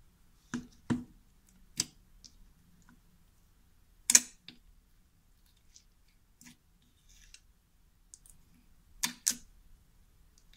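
Clear pom-pom slime being handled, giving a handful of sharp clicks and pops spread apart, the loudest about four seconds in and two quick ones close together near the end.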